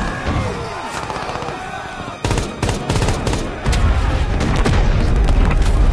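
Battle gunfire: many rifle and machine-gun shots crackling over one another. A dense run of rapid shots starts about two seconds in, and the firing grows louder and heavier with a deep rumble underneath just past the halfway point.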